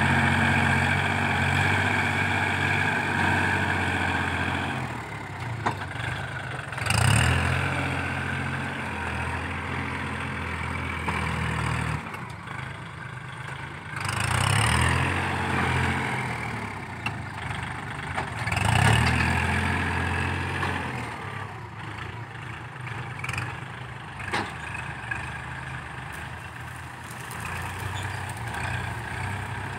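Kubota L4018 tractor's four-cylinder diesel engine working under load while it pushes dirt with its front blade. The engine note rises and falls, surging louder several times as the tractor drives into the pile.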